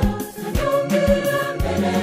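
Background music: a choir singing a hymn to the Blessed Virgin over a steady beat of about two thumps a second.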